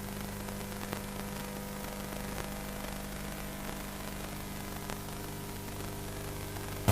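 Quiet passage of a lo-fi home recording: a steady hiss with a faint low hum and faint held tones underneath.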